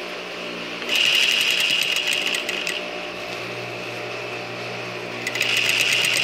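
Industrial straight-stitch sewing machine running fast, sewing a rolled hem through a hemmer foot in two bursts: one about a second in, the other near the end. A steady low hum carries on between the bursts.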